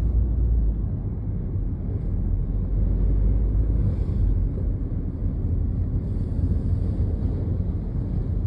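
Strong wind buffeting the microphone: a loud, deep, steady rumble with a rushing hiss above it.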